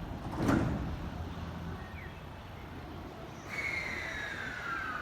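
Electric train noise at a station: a steady low rumble, a sharp knock about half a second in, then from about three and a half seconds an electric motor whine that falls steadily in pitch.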